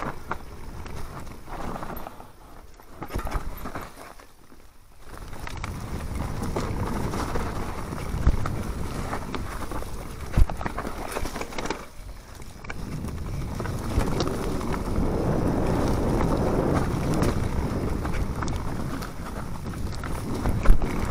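Mountain bike tyres rolling fast over a dirt trail strewn with dry leaves, the bike rattling with sharp knocks over bumps; the rolling noise dips briefly about four seconds in.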